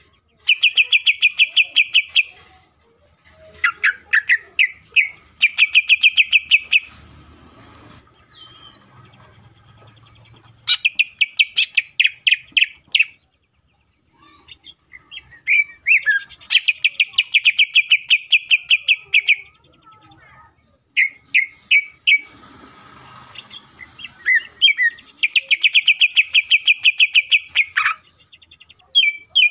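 Male greater green leafbird (cucak ijo) singing in loud bouts of rapid repeated notes, about eight a second, each bout a second or three long, broken by short pauses.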